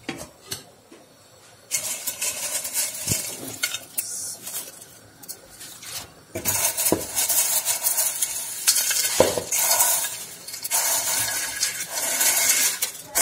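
Browned dried noodles tipped and pushed by hand from an enamel bowl into a pot of boiling water. A steady hissing rush of bubbling water and rustling noodles, louder in the second half, with a few knocks and clinks of the bowl against the aluminium pot.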